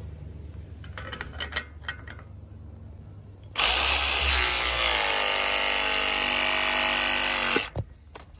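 Ridgid battery press tool with a MegaPress jaw pressing a fitting onto black iron gas pipe: a few light clicks as the jaw and a level are set on the pipe, then about three and a half seconds in the motor starts and runs steadily for about four seconds with a high whine that dips slightly, stopping abruptly near the end as the press cycle completes.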